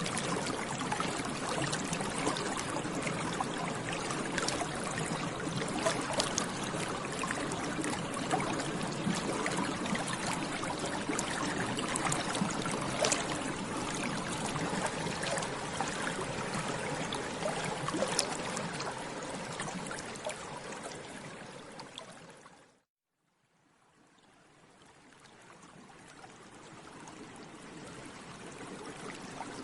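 Water bubbling continuously, with many small bubble pops and gurgles. About three quarters of the way through it fades out to a moment of silence, then fades gradually back in.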